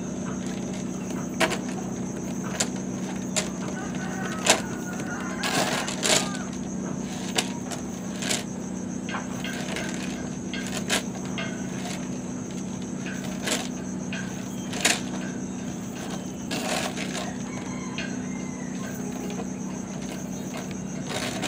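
Small boat engine running steadily at an even pitch, with scattered sharp knocks and a few short rushing noises over it.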